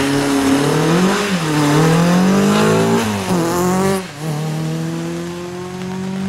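Renault Clio rally car's engine revving hard up through the gears, the pitch falling sharply at each shift about one and three seconds in, then a long rising note as it pulls away. A hiss of tyres on the wet road runs under it.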